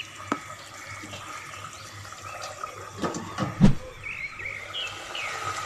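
A ladle clicks against the cooking pot, then a glass lid is set onto the pot with a few knocks, the loudest about three and a half seconds in. Beneath them is a steady low hiss from the simmering fish curry.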